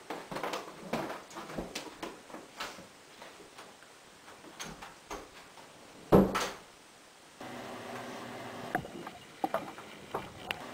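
Footsteps and light knocks, then a door shutting with a single loud thud about six seconds in. After that a steady room hum with a few sharp clicks.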